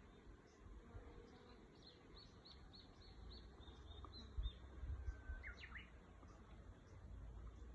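Faint bird calls: a quick run of about seven high chirps starting about two seconds in, then a short whistle and a few rising notes about five and a half seconds in, over a low rumble.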